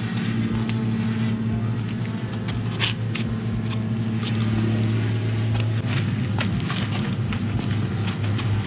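Electric pressure washer running: a steady motor hum under the hiss of the water spray, with scattered sharp ticks and spatters.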